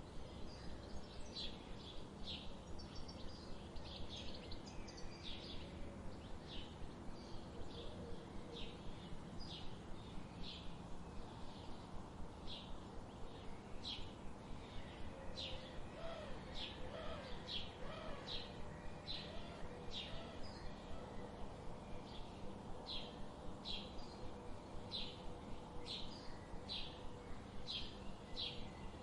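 Small birds chirping: short, high, sharp chirps repeating steadily about once or twice a second, over a steady low background hiss. A few fainter, lower calls come in around the middle.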